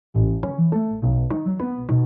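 Background music: a melody of short pitched notes, changing several times a second, over a low bass line.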